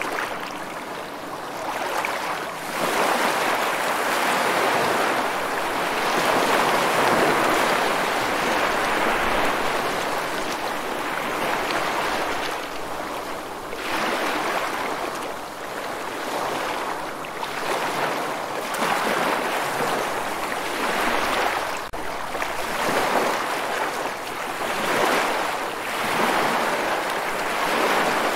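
Sea waves breaking, a continuous rushing of surf that swells and eases every few seconds.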